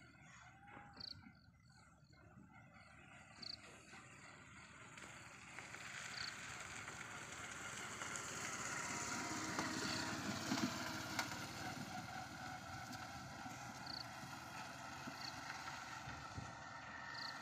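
A passing vehicle, its noise swelling over several seconds to a peak about ten seconds in, then easing off. Short high chirps come every couple of seconds.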